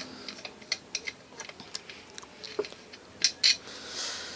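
Irregular small metal clicks and ticks of a screwdriver working a screw out of a ceiling fan's housing, with two sharper clicks about three seconds in.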